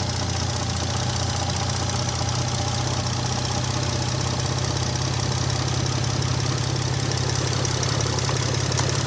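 Mitsubishi 6A13TT twin-turbo V6 idling cold with a fast, steady knock running through it. The owner says this knock comes only while the engine is cold and fades once it is fully warmed, and he places it somewhere in the vee between the cylinder heads.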